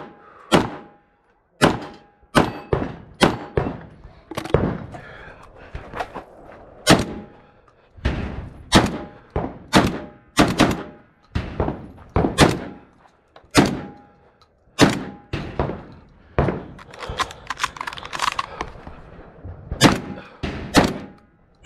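Close gunfire from the shooter's own guns, a pistol and then a shotgun: an irregular run of some two dozen sharp shots, about one or two a second. A short ringing tone follows several of them.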